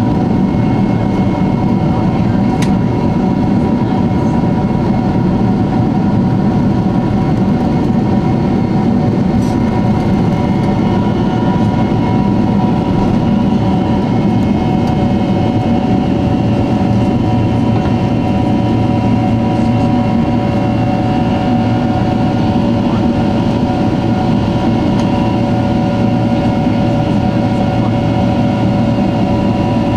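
Boeing 767's GE CF6 turbofan engines at takeoff thrust, heard from the cabin over the wing through the takeoff roll and climb-out. A steady, loud roar runs under several steady whining fan tones.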